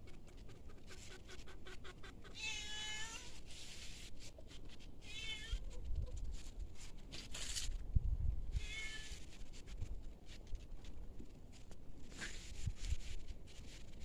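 A cat meowing three times, each meow short, spaced roughly three seconds apart.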